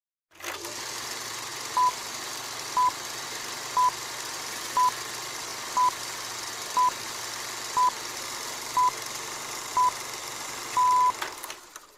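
Countdown beeps on an intro: a short, high, pure beep once a second, nine times, then a longer final beep about eleven seconds in. Under them runs a steady hiss with a faint low hum, like old film soundtrack noise.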